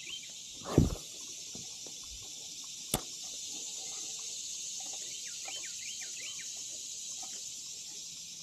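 Creekside summer ambience: a steady high insect buzz with scattered short bird chirps, broken by a dull thump about a second in and a single sharp click about three seconds in.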